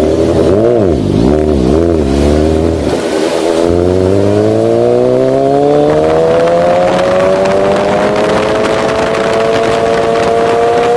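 Suzuki GSX-R sportbike's inline-four engine: the throttle is blipped about three times, then from about three and a half seconds in the engine pulls hard, its pitch climbing steeply and then more slowly but steadily.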